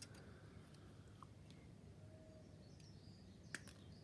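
Near silence: faint room hum, with a single light click about three and a half seconds in.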